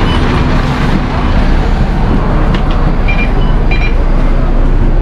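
A double-decker bus's engine and road noise heard inside the cabin: a loud, steady rumble. A few short, high electronic beeps sound about halfway through.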